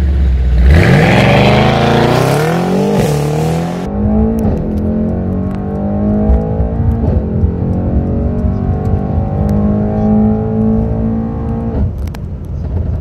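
Mercedes-AMG E63S W213's 4.0-litre twin-turbo V8 through an iPE aftermarket exhaust, revving up hard with a quick dip at a gear change about three seconds in. Then, heard from inside the cabin, it accelerates steadily through the gears until the throttle lifts near the end, with a few faint crackles.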